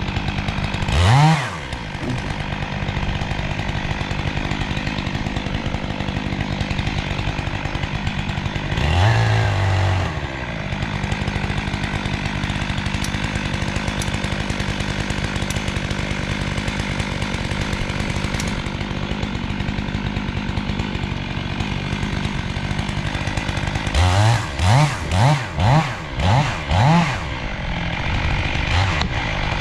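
Chainsaw running steadily while felling a large tree, revving up and down briefly about a second in and again about nine seconds in, then a run of about six quick throttle revs near the end.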